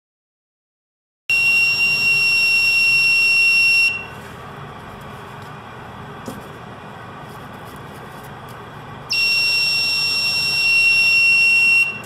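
Buzzer of a homemade laser-and-LDR security alarm sounding a steady high-pitched tone twice, each for about two and a half seconds and cutting off abruptly: the alarm tripping when the laser beam to the light sensor is broken.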